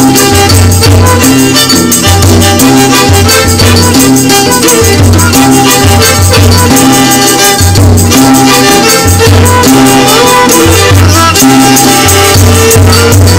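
Loud background music with a steady repeating bass beat and a rattling shaker.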